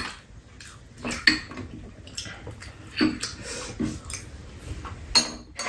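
Metal spoons clinking against ceramic bowls and a metal tray during a meal: scattered light clinks and taps, one every half second to a second, with a sharper clink near the end.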